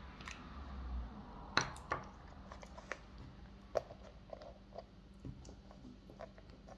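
Small clicks, taps and rustles of pencils, markers and a fabric pencil case being handled on a table, with a few sharper taps in the first four seconds.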